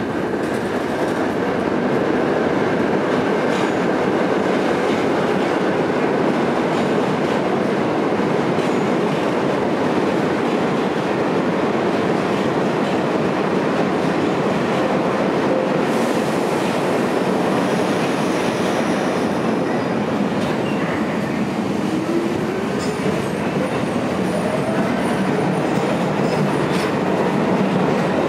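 Loud, steady rumble and rattle of a New York City subway train, with a rising whine in the last few seconds as a train gathers speed along the platform.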